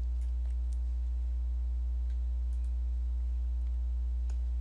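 A steady low hum with evenly spaced overtones, and a few faint scattered clicks at the computer: three in the first second, then one near the middle and one near the end.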